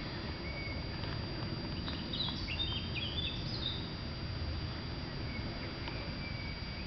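A songbird chirping a quick series of short high notes for a second or two, starting about two seconds in, over a steady low outdoor background rumble.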